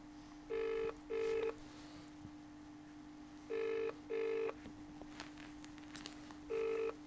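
British-style telephone ringback tone heard down the phone line: a double ring ('brr-brr') sounding three times, about three seconds apart, which means the dialled number is ringing.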